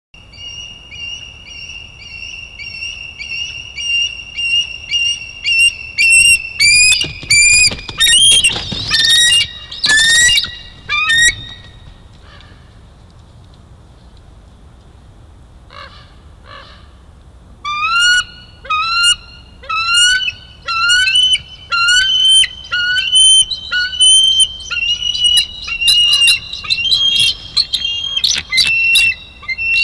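Bald eagle chittering calls: runs of high, piercing notes repeated one to two a second, in two bouts with a quiet pause between them. A burst of rushing wing noise comes between about eight and ten seconds in, as an eagle lands on the nest.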